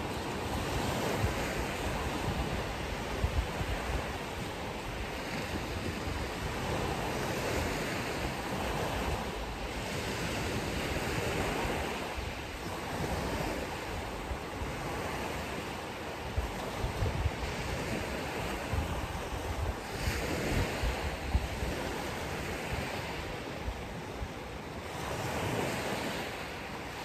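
Ocean surf washing on a beach, a steady rush that swells and eases every few seconds, with gusts of wind rumbling on the microphone.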